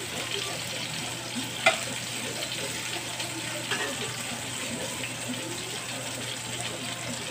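Beef steaks and onion rings sizzling in a cast-iron skillet with a steady crackling hiss. Two sharp clicks, about a second and a half and nearly four seconds in, are the metal tongs striking the pan as the meat is turned.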